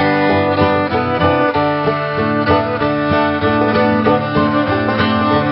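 Background music: string instruments, fiddle and plucked strings, playing a steady tune.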